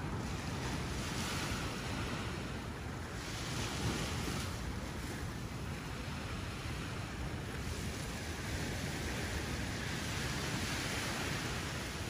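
Small waves washing onto the sand, the surf hiss swelling and fading every couple of seconds. Wind rumbles on the microphone underneath.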